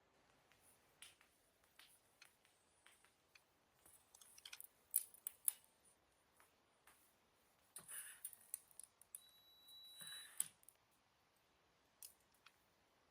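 Faint scattered clicks and snipping sounds of small hand tools or packaging being handled, with a few short rustling scrapes and a thin high-pitched tone lasting about a second, around nine seconds in.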